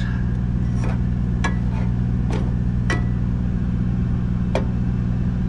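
Semi-truck diesel engine idling with a steady low hum, while a spoon stirring melting butter knocks against a saucepan about five times.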